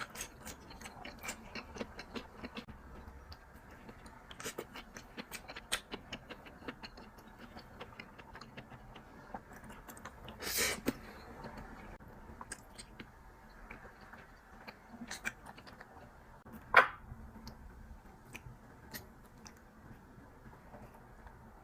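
Irregular light clicks and crunches, with a louder rustling burst about ten and a half seconds in and one sharp knock about seventeen seconds in.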